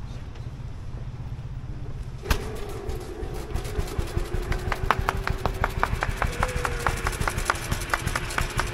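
Veteran car engine starting up about two seconds in and then running slowly, its firing strokes coming as an even, sharp beat of about four to five a second.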